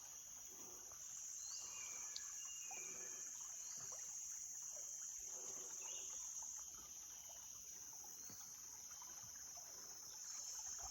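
A steady, high-pitched drone of insects in tropical forest, with a few faint bird chirps over it.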